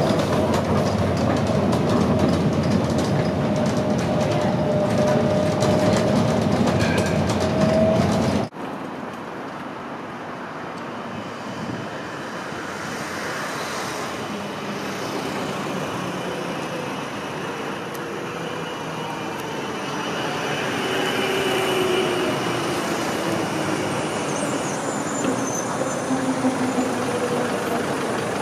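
Riding inside a tram: a steady loud running rumble with a faint motor whine slowly falling in pitch. It cuts off suddenly about eight seconds in to a quieter passage of a tram approaching and passing on its track, with faint whines gliding up and down.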